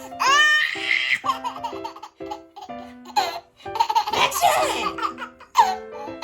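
A nine-month-old baby laughing in several high-pitched bursts, over light background music with held notes.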